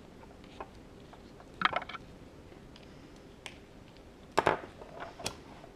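Handling noise from small electronics and a plastic disposable lighter being picked up: scattered short clicks and rattles, with two louder clusters about a second and a half in and about four and a half seconds in.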